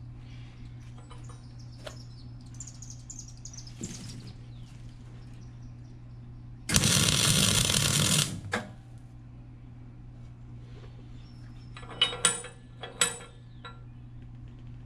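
Miller Millermatic 252 MIG welder laying a weld bead on a D-ring against a steel hitch plate: the arc starts suddenly about seven seconds in, runs as a steady hiss for about a second and a half, then stops.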